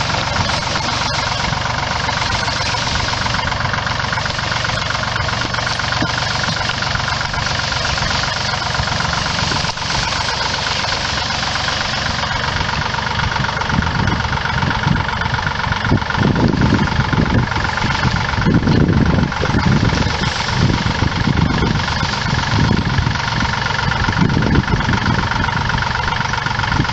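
Engine running steadily with a knocking beat. About halfway through, louder, deeper pulses come and go.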